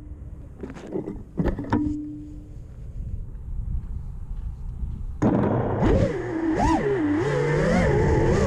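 A few scattered knocks and a brief hum, then about five seconds in an FPV quadcopter's motors start up suddenly, their whine sweeping up and down in pitch as the throttle changes.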